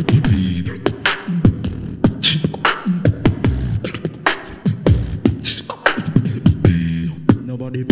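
Solo beatboxing into a handheld microphone: a quick, continuous beat of sharp mouth clicks and hisses over low hummed bass tones.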